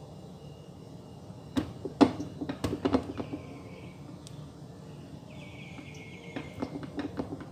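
Clusters of light knocks and taps from pink plastic puto molds being handled while cheese toppings are set on the batter, the loudest about two seconds in. Twice a high trilling tone sounds for about a second each.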